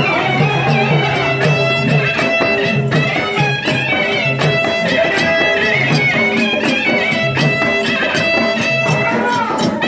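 Traditional folk music: a high, wavering melody over a steady drum beat, loud and continuous.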